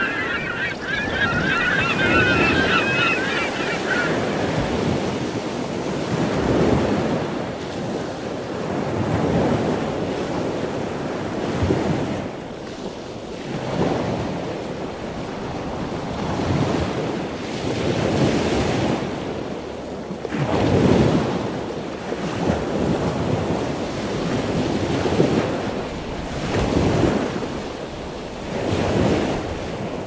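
Small waves washing against rocks along the shore, surging every two to three seconds, with wind buffeting the microphone. A bird calls over the first few seconds.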